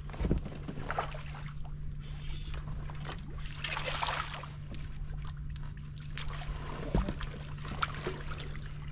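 Ambience aboard a fishing boat on still swamp water. A steady low hum runs throughout, with a sharp knock on the boat just after the start and another about seven seconds in, and a brief hiss about four seconds in.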